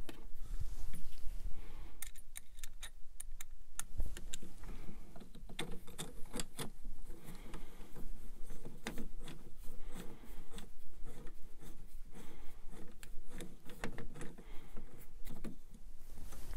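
Small metal parts being handled by hand: irregular light clicks and rubbing as M3 bolts are tried in a 3D printer hot end's mounting holes.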